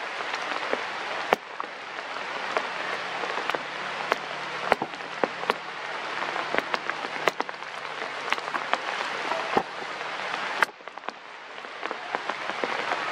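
Rain pattering on forest leaves, a steady hiss with many sharp separate drips and taps. About two-thirds through it drops away suddenly, then builds up again.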